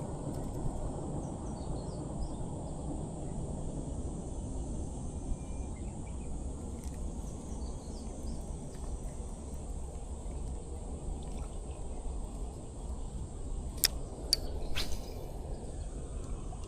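Outdoor riverbank ambience: a steady low rumble with faint bird chirps and a steady high insect drone. About fourteen seconds in come three sharp clicks in quick succession.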